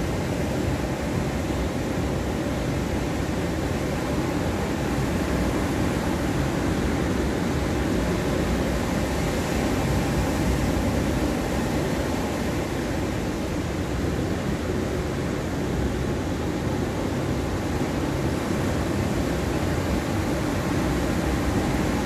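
Rough ocean surf breaking along a sandy shore ahead of a typhoon: a steady, dense roar of breaking waves, strongest in the low end, gently swelling and easing in loudness.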